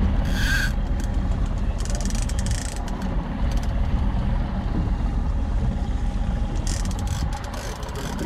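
A fishing reel buzzing and clicking in a few short bursts as a hooked fish is fought on a bent rod, over a steady low rumble of wind and the boat.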